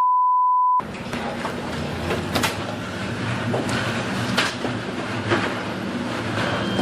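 A one-second censor bleep, then the steady low drone of a ship's engine under a noisy wash, with a few sharp knocks and bangs along the way.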